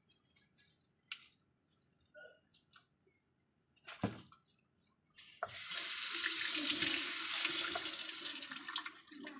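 Kitchen tap running into a stainless steel sink, turned on about halfway through, with hands rinsing under the stream; the water eases off near the end. A few light clicks and a sharp knock come before it.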